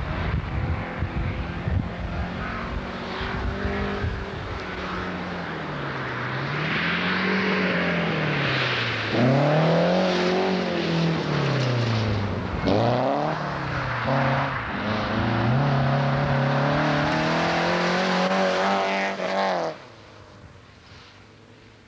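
Rally car engine at full throttle on a gravel stage, its note climbing and dropping back several times, with a hiss of tyres on gravel. The sound cuts off suddenly near the end.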